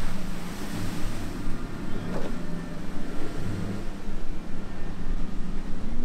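Triple outboard motors on a center-console boat running hard through choppy water, a steady engine drone under the hiss of spray, with a short splash of a wave about two seconds in.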